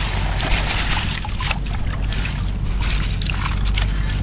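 Water splashing and sloshing over a steady rush of flowing water, with irregular short splashes.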